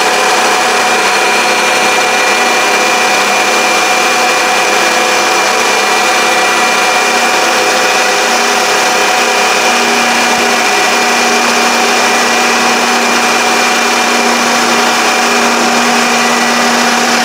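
Mini lathe running on its automatic feed: a steady motor whine over an even mechanical noise. A lower steady hum joins about ten seconds in.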